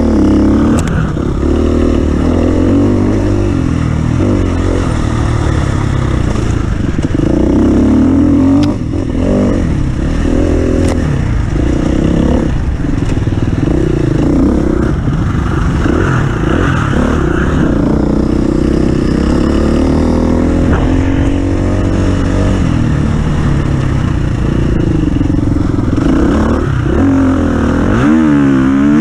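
Off-road racing vehicle's engine revving hard and dropping back again and again, with rattling and scraping over rough ground, then rising steeply near the end.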